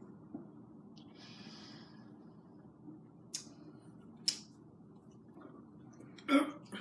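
A short, loud burp near the end, brought up by drinking carbonated Coke. Before it come a soft breathy hiss about a second in and two sharp clicks.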